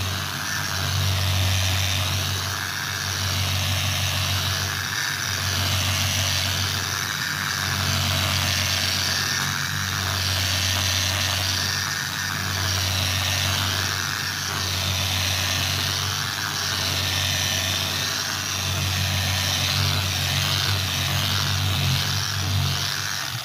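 Electric hand polisher running with a diamond pad on wet stone, its motor hum and pad noise swelling and fading about every two seconds as the pad is worked over the surface, then stopping at the very end. Wet-polishing out a scratch, finishing at up to 3,000 grit.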